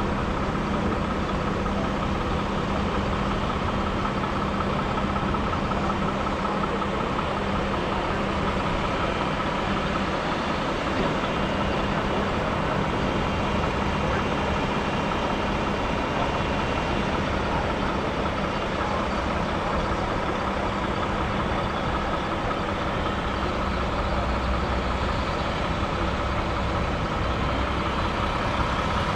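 Heavy diesel farm machinery running steadily: a constant engine drone with a steady higher whine over it.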